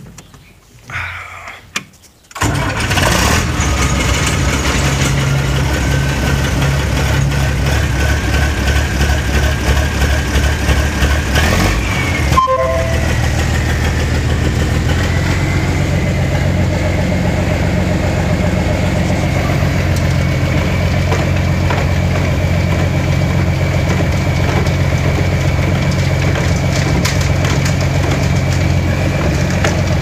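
Old farm tractor engine starting suddenly about two seconds in, then running steadily to drive the feed mixer so its conveyor can be run empty. A brief break with a few short tones comes about twelve seconds in, after which a thin, steady whine runs alongside the engine.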